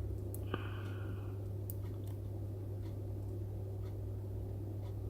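A steady low electrical hum with scattered faint small clicks from tools being handled on a workbench, and one brief ringing tink about half a second in.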